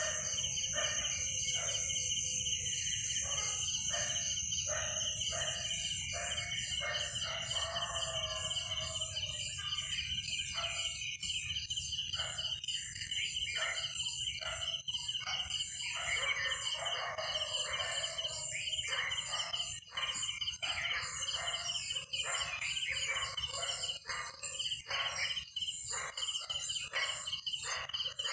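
Dawn chorus of many birds calling and chirping, short repeated calls over one another, above a steady high-pitched insect chorus.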